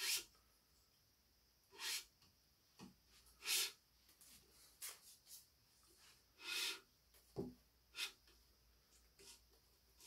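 Badminton string (Yonex BG80) being pulled through a racket's frame during stringing: about ten short, bright swishes at uneven intervals.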